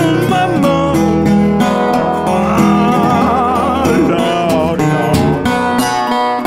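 Blues played on an acoustic guitar with a slide, with a man singing over it; some held notes waver with vibrato around the middle.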